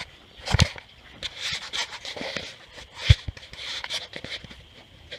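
Two heavy knocks, about half a second in and about three seconds in, the second followed by a smaller one, with uneven scraping and rustling between: objects being handled and bumped.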